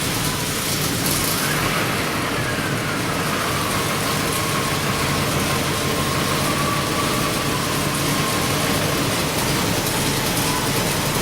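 GAZ Volga engine with a K151 carburetor running steadily at idle, with a thin whistle-like tone that slides down in pitch over the first few seconds and then holds steady.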